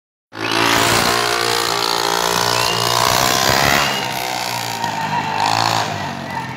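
A small motor running with a steady buzzing hum that wavers a little in pitch.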